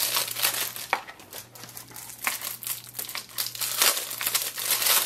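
Thin plastic packaging crinkling and crackling in irregular bursts as it is pulled open by hand to get false eyelashes out.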